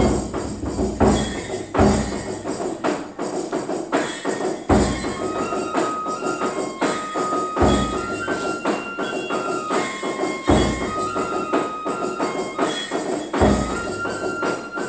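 Kagura dance music: a high flute melody in held, stepping notes over a deep drum beat about every three seconds, with fast clattering hand percussion throughout.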